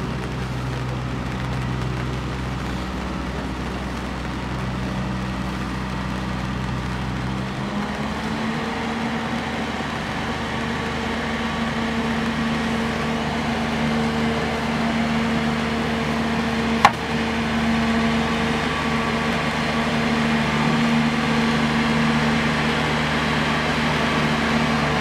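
Boat engine running steadily at low speed. Its hum changes pitch about eight seconds in and grows slowly louder, with one sharp click near the middle.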